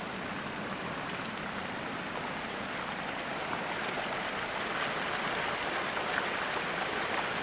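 Two small headwater streams in high runoff rushing together at their confluence: a steady rush of water that grows a little louder partway through.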